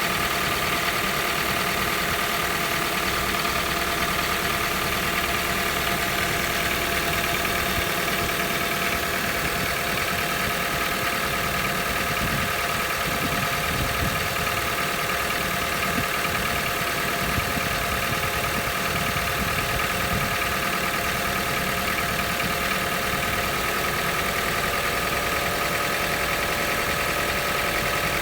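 Toyota 1NZ-FE 1.5-litre four-cylinder engine idling steadily on a cold start, with a knock that the owner says comes every morning from the cold engine and goes away after a few minutes.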